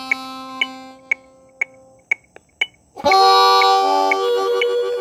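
Harmonica: a held note fades out about two seconds in, then after a short gap a loud sustained chord starts about three seconds in. A sharp click repeats about twice a second underneath.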